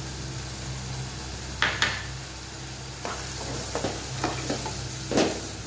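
Wooden spatula stirring freshly added tomato puree into a sizzling onion masala in a non-stick pan. A low, steady sizzle runs under a few short scrapes and knocks of the spatula against the pan. The strokes begin about a second and a half in, and the strongest comes near the end.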